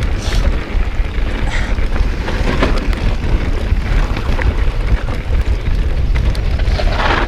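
Wind buffeting an action camera's microphone while a mountain bike descends a dirt trail, with tyre rumble and short knocks and rattles from the bike over the rough ground. A louder scrub of noise comes near the end.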